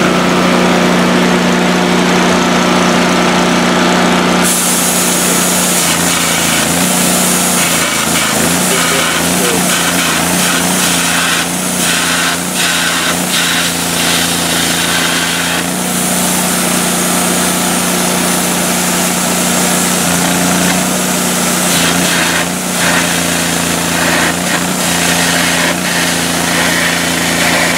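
Miller Trailblazer 302 Air Pak engine-driven welder running steadily, with an electric arc's loud hissing crackle starting suddenly about four seconds in and going on with uneven breaks.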